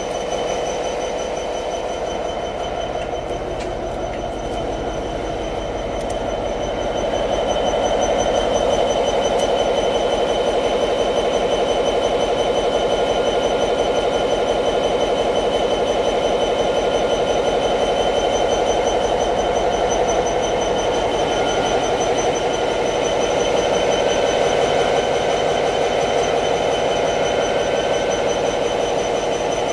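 Diesel locomotive engine running steadily, with a steady high whine over its rumble. It gets louder about seven seconds in and holds there.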